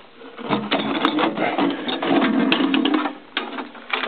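A small ammo-can-style geocache box being handled and its latched lid opened: a run of clattering, scraping and clicking lasting about two and a half seconds, then a couple of sharp clicks near the end.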